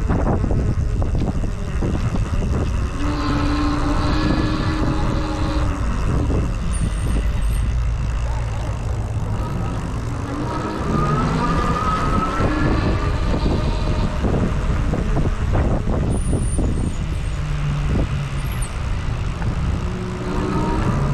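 Wind rushing over the microphone of a moving bicycle, with motor vehicles passing. Their engine tones come and go several times, one rising in pitch about halfway through.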